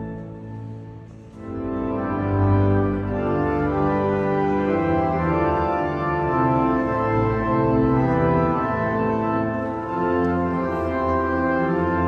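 Cathedral pipe organ playing a hymn in full held chords. Near the start a chord dies away in the church's reverberation, and about a second and a half in the organ comes back in, moving through sustained chords.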